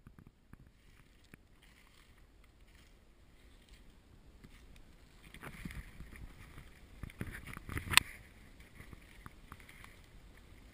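Person moving quickly on foot through brushy woods: footsteps in leaf litter and branches brushing against the worn camera, with scattered snaps and rustles. One sharp knock, the loudest sound, comes about eight seconds in.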